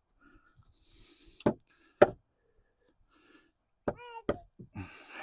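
A big hammer striking a wooden fire-break block to drive it into place between floor joists. There are four sharp blows: two about a second and a half in, and two more near the end.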